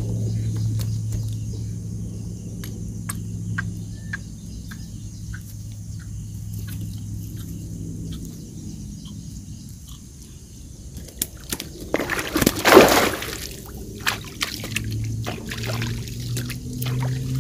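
Water splashing hard about twelve seconds in as a mrigal carp, foul-hooked in the body rather than the mouth, thrashes at the surface while it is played in. Underneath runs a low steady hum with scattered light clicks.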